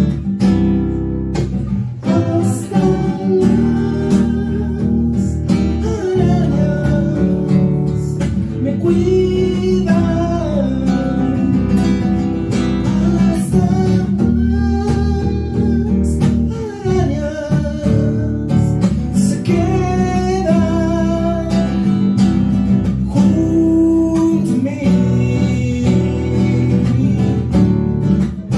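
Live acoustic song: a nylon-string classical guitar played with an electric bass underneath, and a man singing the melody over them.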